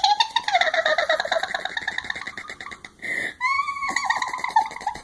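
A person making a high-pitched, rapidly pulsing trill with the voice, in two long held stretches with a short breath between them about three seconds in.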